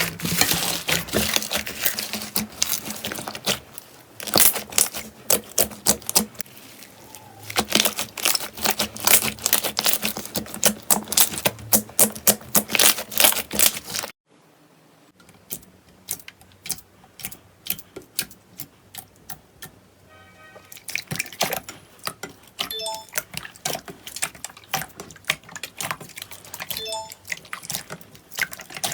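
Slime being squeezed and pressed by hand, with dense crackling and popping. It cuts off suddenly about halfway through. After that come sparser, quieter pops and clicks with a few short tones.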